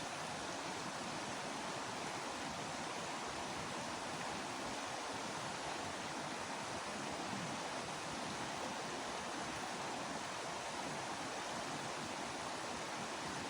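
Steady rush of flowing stream water, an even hiss with no breaks or separate events.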